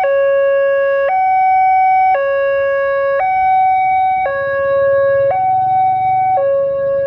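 Indonesian railway level-crossing warning alarm sounding from the horn loudspeaker on the crossing signal: a steady two-tone electronic alarm alternating between a lower and a higher note, about a second each. It is the warning that a train is approaching and the barrier is down.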